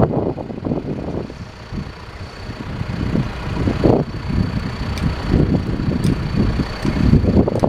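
John Deere 310SJ backhoe's diesel engine idling, with gusty wind buffeting the microphone in uneven swells over it.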